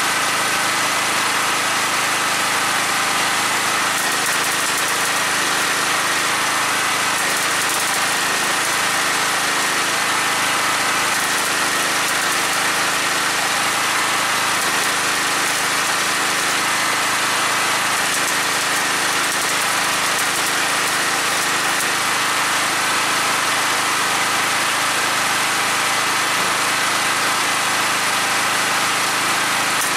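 Steady, unbroken machine hiss with a faint steady whine, unchanging throughout.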